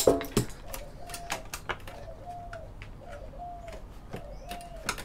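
A bird calling over and over in short, slightly arched notes that come in pairs about once a second, together with sharp clicks and taps of computer parts being handled as a PC is taken apart.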